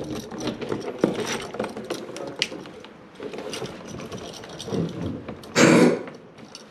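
Clicking and rattling of hand tools and wiring being handled at an electrical switch, with a short, loud scraping rush a little before the end.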